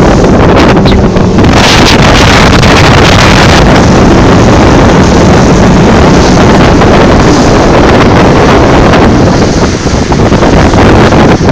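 Selva 115 Narwhal outboard motor running at speed on a rigid inflatable boat, loud and steady, with heavy wind buffeting the microphone and water rushing against the hull.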